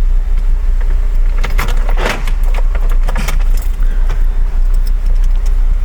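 Car keys jangling and clicking at the ignition, with a cluster of rattles about a second and a half in and another click a second later, over a steady low rumble.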